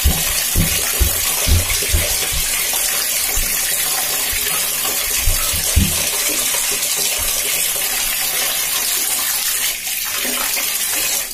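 Water running hard from a tap in a steady rush, with several dull thumps in the first half; the flow cuts off at the very end.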